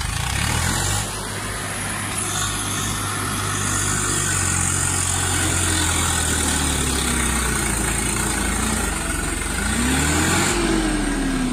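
Swaraj 744 XT tractor's three-cylinder diesel engine running hard under load as it struggles up a steep dirt slope. About ten seconds in, the engine revs up and then drops back.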